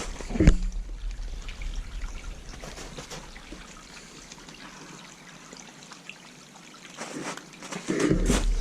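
Small stream trickling steadily, with one sharp knock about half a second in.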